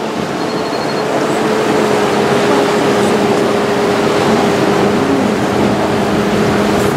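Wooden motor launch's inboard engine running steadily as it cruises, a constant hum over a steady rush of water and wind.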